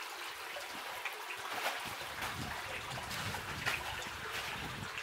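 Shallow creek water babbling and trickling over rocks, a steady splashing hiss.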